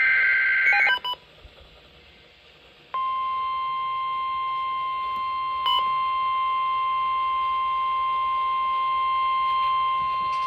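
NOAA Weather Radio alert: the last SAME digital header burst, a harsh two-pitch data screech lasting about a second, then after a short gap the steady 1050 Hz warning alarm tone starts about three seconds in and holds. The alarm tone signals that a warning, here a flash flood warning, is about to be read.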